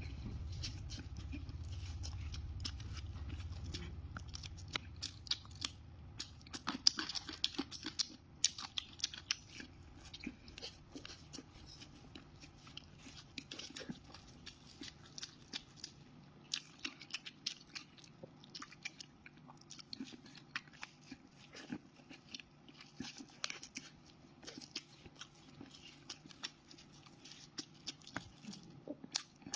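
Close-miked chewing of crunchy food: an irregular run of crisp crunches and bites. A low rumble fades out in the first few seconds.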